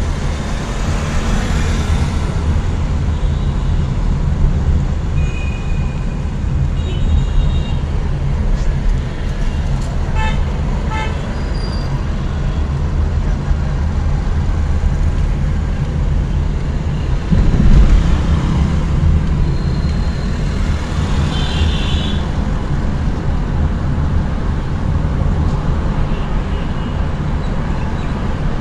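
Steady low road and engine rumble inside a moving car's cabin in city traffic, with short horn toots from nearby vehicles now and then and a louder low bump about two-thirds of the way through.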